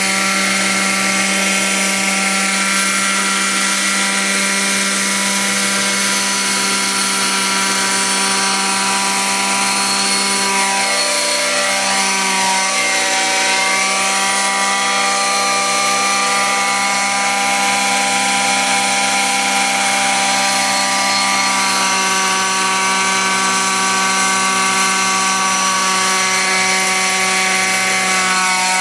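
Radio-controlled gas helicopter's Zenoah 23cc two-stroke petrol engine and rotors running steadily in flight, a constant buzzing drone. Its pitch shifts slightly about halfway through as it moves around.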